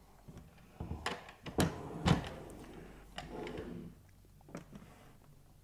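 Wooden crate being pushed and set into place on a tabletop: three knocks between about one and two seconds in, then a softer scraping slide.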